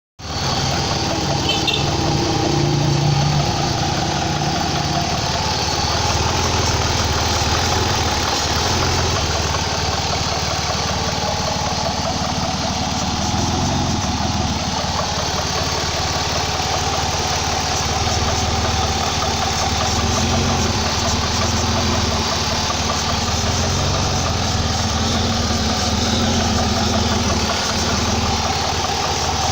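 2004 Ford Escape's 3.0 L V6 idling steadily, with a constant hiss that the owner takes for a vacuum leak, the suspected cause of its rough idle and occasional stalling.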